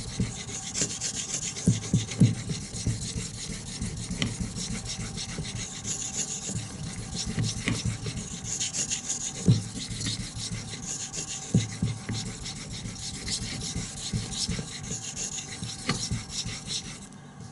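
Steel knife blade scraping back and forth on a sharpening whetstone in repeated strokes, a hissy swell roughly every two seconds, stopping shortly before the end.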